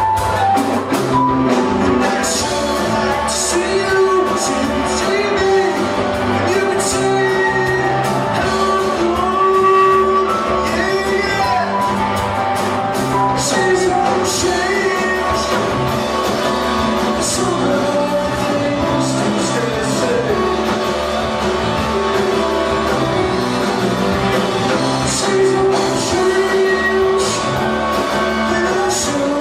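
Live rock band playing electric guitar, bass guitar and drum kit with cymbals, with a male lead vocal sung into a microphone.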